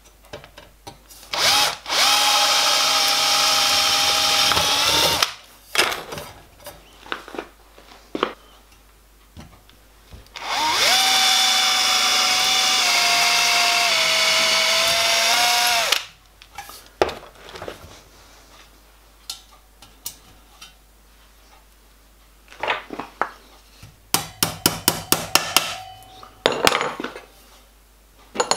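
Cordless drill drilling holes through the copper sheet of a model locomotive boiler's firebox wrapper: two runs of a few seconds each at a steady whine, the pitch sagging slightly as the bit bites into the copper in the second run. Between the runs come scattered handling clicks, and near the end a quick series of sharp clicks.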